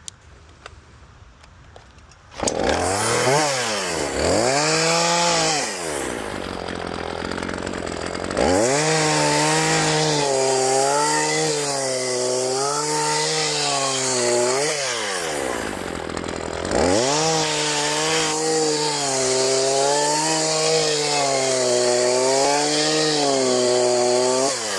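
Two-stroke chainsaw coming on about two seconds in and revving up, then run at high throttle in two long cuts with its pitch sagging and recovering under load. It drops back to a lower idle between cuts and at the end.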